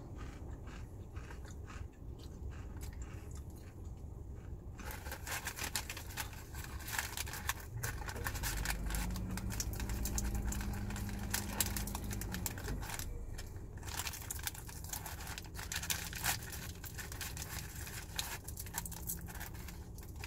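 Close-up eating sounds of crispy fried chicken: crunching, chewing and wet mouth clicks, with light plastic crinkling from the sauce cup. A low steady hum comes in under it in the middle and again later.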